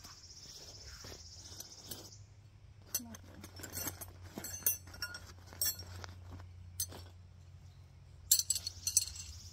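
A scatter of light clicks and clinks of small hard objects being handled, with a tight, louder cluster about eight seconds in. A high, pulsing insect buzz fills the first two seconds over a steady low hum.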